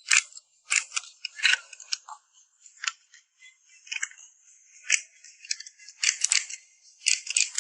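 Miniature toy pistol being worked by hand: a string of irregular sharp plastic-and-metal clicks and clacks, the slide racking and snapping back and the trigger dry-firing.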